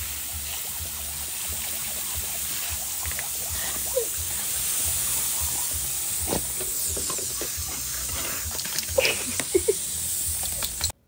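Garden hose spraying a steady hissing jet of water onto a dog and a pebble patio, with a few short sharp sounds near the end.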